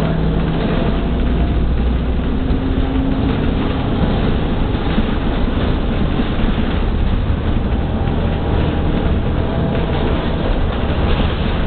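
Cabin noise inside an Ansaldo-Mauri electric trolleybus in motion: a steady low rumble of the ride, with a faint tone rising slightly about two seconds in.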